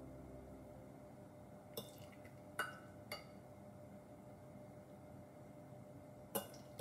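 A metal spoon clinks lightly against small glass cups four times, short sharp ticks with a brief ring, as cubes of gelatin jelly are spooned onto panna cotta.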